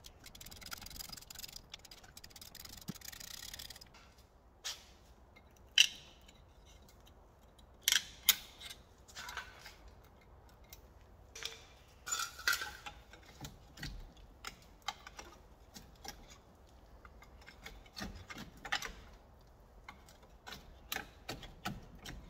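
Scattered metal clinks and knocks of hand tools working at a car's front brake caliper and its bolts, the sharpest about six and eight seconds in. A steady hiss runs through the first four seconds.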